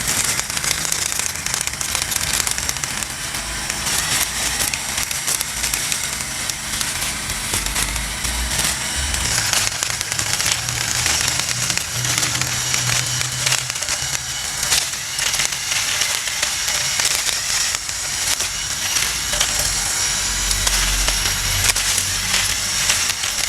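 Homemade cordless-drill lawn mower running, its hacksaw-blade cutter whipping through grass with dense crackling and ticking as the blade strikes the stalks.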